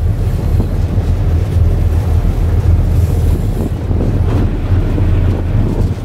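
Motorboat under way: a steady low engine drone with water rushing past the hull and wind buffeting the microphone.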